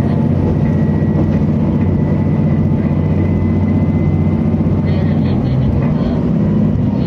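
Diesel railcar engine (KTR8000 'Tango no Umi') pulling hard under acceleration, heard from inside the car, with a thin steady whine over the engine note. About four to five seconds in, the transmission changes gear and the engine's note shifts: the hearty, quirky gear-change sound of this railcar.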